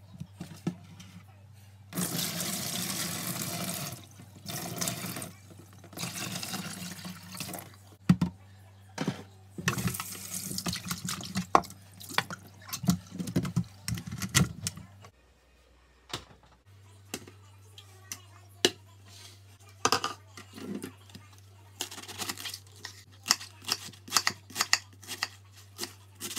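Kitchen tap running in several spells into a stainless steel sink as vegetables are rinsed, with some handling clatter. Near the end, a knife chopping cabbage on a wooden cutting board in quick taps.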